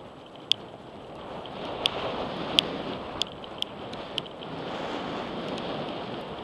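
Wind rushing over a helmet-mounted camera's microphone and tyres rolling on a dirt trail as a mountain bike descends, growing louder about a second and a half in. Several sharp clicks and rattles from the bike over bumps.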